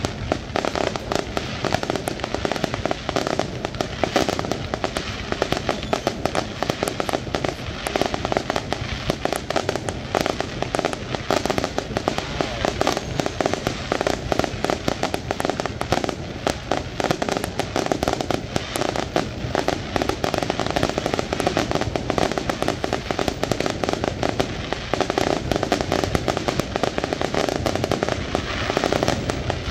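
Aerial fireworks bursting in a dense, unbroken barrage of bangs and crackles, one burst tumbling over the next.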